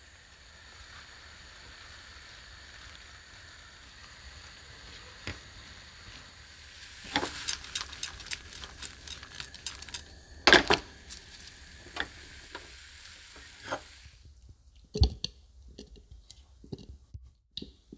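Diced pears sizzling in brandy in a frying pan, with a steady hiss; from about seven seconds in the pan is stirred, with quick knocks and scrapes of the utensil against the pan. Near the end the sizzle cuts off suddenly and a few separate knocks follow.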